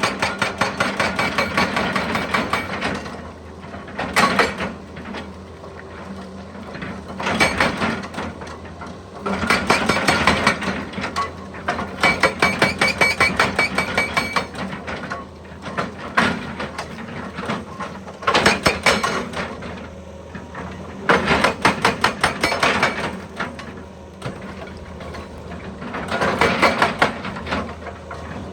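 Excavator-mounted hydraulic hammer pounding rock in bursts of a few seconds of rapid, even blows, stopping and starting again about eight times, over the steady running of the excavator's diesel engine.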